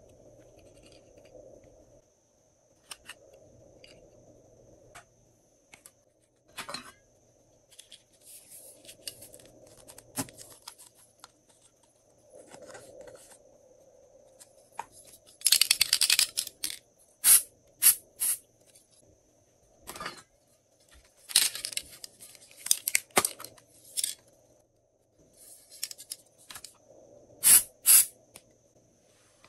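Small clicks and rustles of plastic toppings and packaging being handled, then, from about halfway, a run of short hissing sprays from aerosol dry hair spray cans, the first about a second long and the rest brief puffs.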